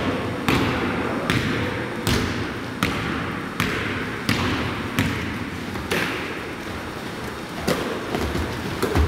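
A basketball being dribbled on a hardwood gym floor, bouncing about once every three-quarters of a second, each bounce echoing in the hall. The bounces pause for about a second and a half near the end, then resume.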